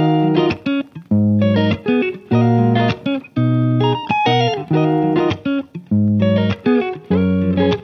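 Background music: plucked guitar notes in short phrases with brief pauses between them.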